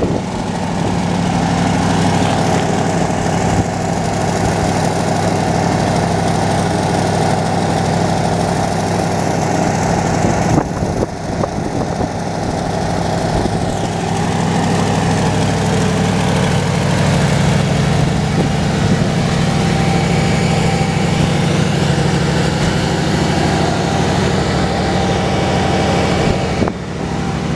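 1977 Lincoln Continental Town Car's carbureted 460 V8 idling steadily on a cold start, heard at the exhaust, held at high idle by the choke.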